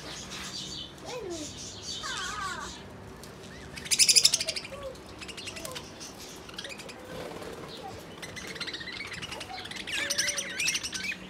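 A group of budgerigars chirping and warbling in a cage, with a loud, rapid rattling burst about four seconds in.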